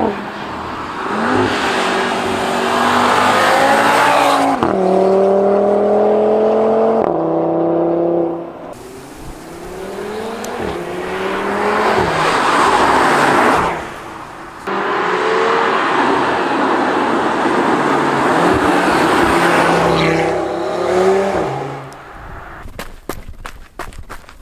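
Audi TT RS's turbocharged five-cylinder engine with sports exhaust accelerating hard through the gears in several separate stretches, its pitch climbing and dropping back at each upshift. Near the end the engine fades and a few footsteps crunch on gravel.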